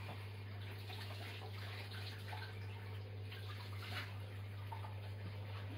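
A steady low hum under a faint hiss, with a few soft clicks about two and four seconds in.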